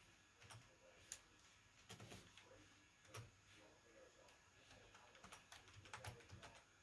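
Faint, irregular keystrokes on a computer keyboard, a few scattered clicks with a quicker cluster near the end.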